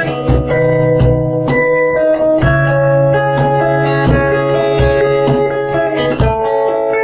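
Instrumental break in an acoustic ballad: acoustic guitar chords with a cajon beat under them.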